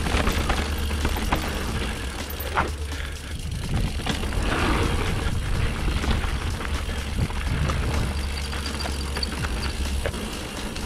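Mountain bike on a dirt trail: wind rumbling over the camera microphone, with tyre noise and scattered clicks and rattles from the bike. The low wind rumble drops away near the end.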